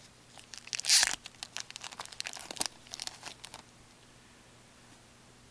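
Foil trading-card pack wrapper crinkling and rustling as a hockey card pack is handled and opened, in a run of short crackles with a louder burst about a second in, dying away after about three and a half seconds.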